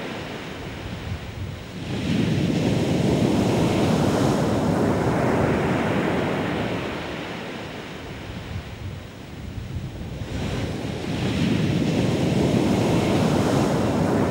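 Rough monsoon sea: heavy surf breaking and rushing in. The roar swells up about two seconds in, eases off for a couple of seconds, then surges again about ten seconds in.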